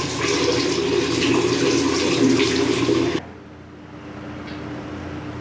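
Water from a bathroom tap running into a washbasin, shut off abruptly about three seconds in. A faint steady hum remains after it.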